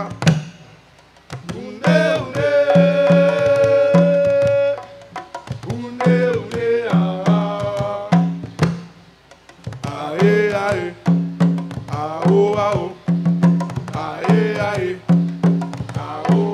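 Live percussion music: a man sings over djembe hand drums beating a steady rhythm, with two short breaks between sung phrases.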